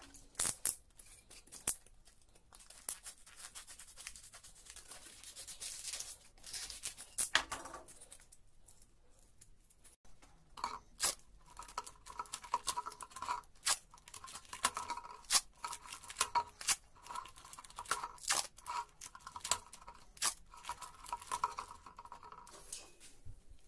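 Adhesive tape being pulled off its roll in repeated short rasping pulls, mixed with sharp clicks and taps from handling. A scraping, rustling noise with clicks comes before it, in the first several seconds.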